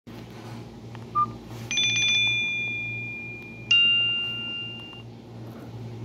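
Nokia 130 feature phone's small loudspeaker playing Nokia Asha 300 tones: a short beep about a second in, then two bell-like chimes, each struck and ringing out over a second or so before fading.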